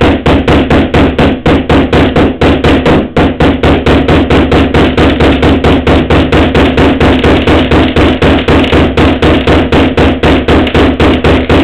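A hammer tapping quickly and evenly round the end of a tube, about five blows a second, flaring it out into a flange to grip a bearing's race.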